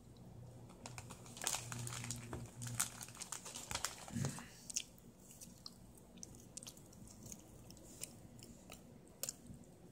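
A domestic cat chewing scraps of cooked turkey meat close by: a run of wet clicks and crunches for the first few seconds, then much quieter chewing with one last click near the end.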